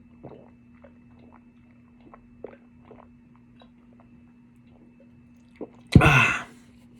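A man drinking down the last of a cranberry cider in faint, irregular swallows, then letting out a loud breath about six seconds in.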